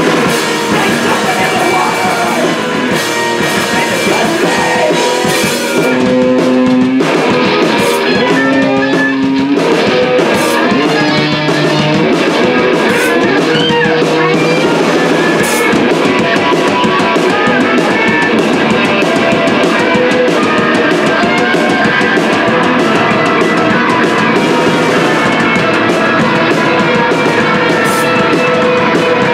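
Live post-punk/noise-rock band playing an instrumental passage: electric guitars, bass guitar and drum kit. About six seconds in, the cymbals thin out under held guitar notes, and the full band comes back in about ten seconds in.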